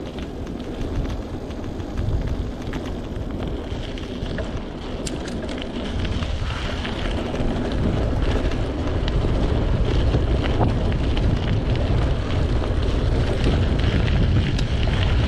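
Wind buffeting a chest-mounted GoPro's microphone as a mountain bike rolls along a gravel road, with the tyres crunching and rattling over loose stones. The wind noise grows louder about six seconds in.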